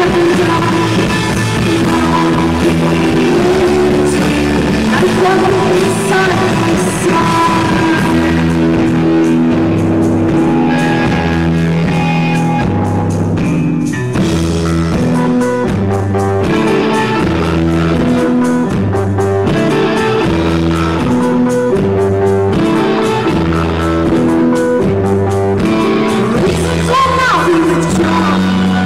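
Rock song played by a band, with electric guitar and drums over a steadily shifting bass line, and a singer's voice now and then.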